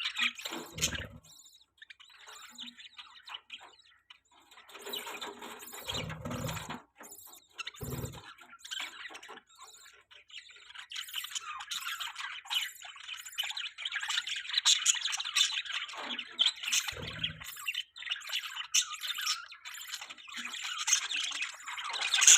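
Budgerigars chirping and chattering in quick, rapid notes, sparse at first and almost continuous through the second half. A few soft low thumps come in between.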